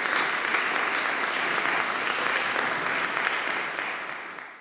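Audience applauding, a dense run of clapping that fades out near the end.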